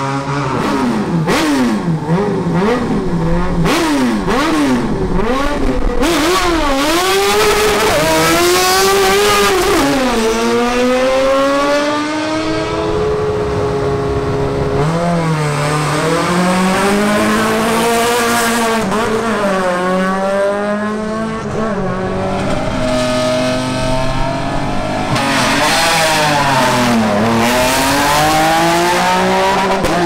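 Racing car engines revving hard, the pitch sweeping up and down quickly with throttle blips and gear changes. About halfway through, one engine holds steady revs for a few seconds before dropping and climbing again.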